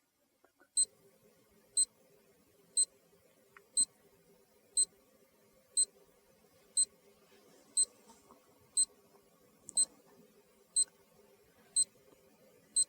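Bomb-timer countdown sound effect: short, high electronic beeps exactly once a second, starting about a second in.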